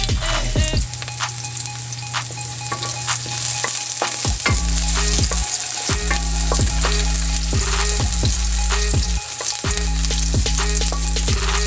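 Sliced onions sizzling in hot oil in a steel wok, stirred and pushed around the pan with a wooden spatula.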